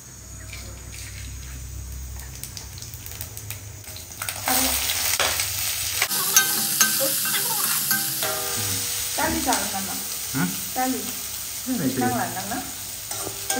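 Food frying in hot oil in a pan: after a low hum, a loud sizzle breaks out suddenly about four and a half seconds in and carries on.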